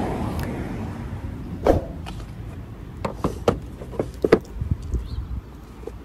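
About a dozen short, sharp clicks and knocks from parts being handled and fitted in a car's engine bay around the airbox and its sensor connectors, over a low steady hum.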